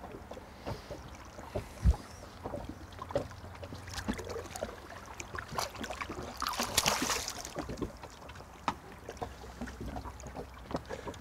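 Water slapping against an inflatable boat with wind on the microphone and scattered small knocks, a dull thump about two seconds in. About two-thirds through comes a short splashing as a hooked starry smooth-hound thrashes at the surface beside the boat.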